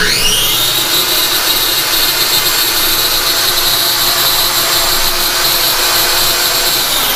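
Corded circular saw spinning up with a quick rising whine and running free at a steady high whine, over the steady drone of a running vacuum cleaner. At the very end the saw starts to wind down.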